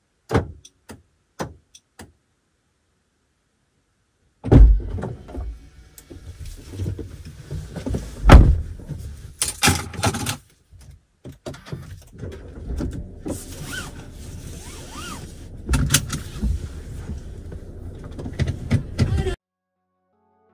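A driver getting into a car and settling in: a few sharp clicks, then loud thuds and knocks of the door and seat with rustling, the loudest thud about eight seconds in. It cuts off suddenly shortly before the end.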